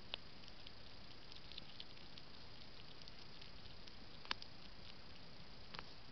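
European hedgehog eating dry food pellets: faint smacking and crunching in a run of tiny ticks, with three sharper clicks, the loudest about four seconds in, over a steady hiss.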